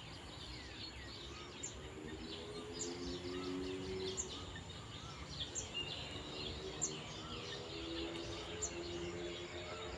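Several birds chirping and calling, one repeating a short high note about once a second, over faint outdoor background noise with a low drone that comes and goes.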